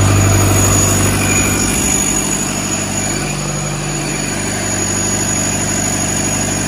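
Rebuilt Hino J05E four-cylinder common-rail diesel engine running steadily on its test run, its low hum easing a little about two seconds in.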